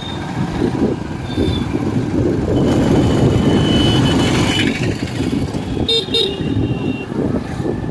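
Highway traffic with vehicle horns honking over steady road and engine rumble: one long horn blast about three seconds in, then two short honks about six seconds in.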